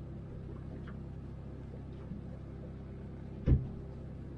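A steady low hum with one short knock about three and a half seconds in.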